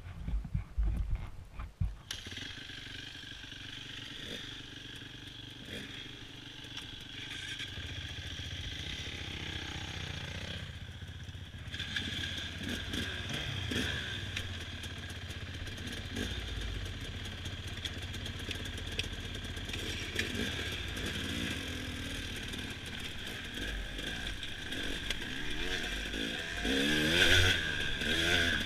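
Dirt bike engine running as the bike rides a trail, its pitch rising and falling with the throttle near the end. Wind buffets the microphone for the first couple of seconds.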